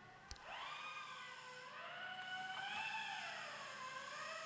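Faint background music: layered synth tones that glide slowly up and down in pitch, with a single small click near the start.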